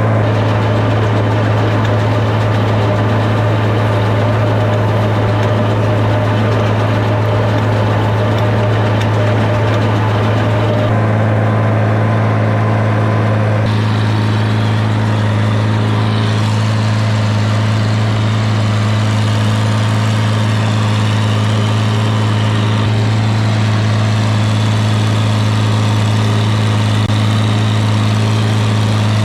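Farmall 706 tractor engine running steadily, pulling a hay baler, with a constant low drone. Its tone shifts slightly about eleven seconds in.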